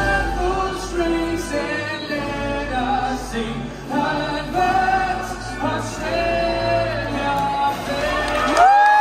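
Slow vocal music: a voice singing long, held notes over accompaniment, gliding up into a long sustained note near the end.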